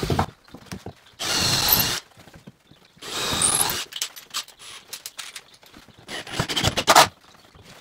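Cordless drill running in two short bursts under a second long, about a second apart, putting screws into the bottom of a plywood panel. Scattered clicks and knocks follow, the sharpest near the end.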